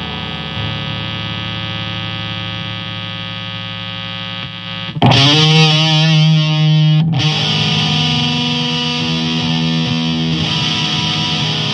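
Black metal intro on distorted electric guitar: a steady droning note rings, then about five seconds in a louder distorted part comes in with wavering, bending notes.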